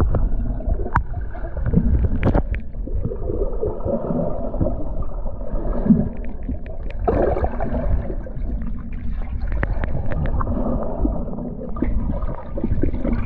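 Muffled underwater sound of swimming: a low rumble of moving water with gurgling and scattered sharp clicks.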